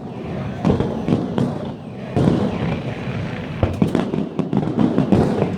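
Aerial fireworks bursting in a rapid, irregular barrage: sharp bangs, several in quick succession, each trailing off in a rumbling echo.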